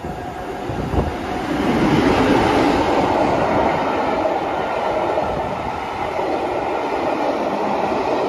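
Class 47 diesel locomotive, with its Sulzer V12 engine, passing at speed with a train of Pullman coaches, loudest about two seconds in as the locomotive goes by, then the coaches rolling past on the rails. There is a sharp knock about a second in.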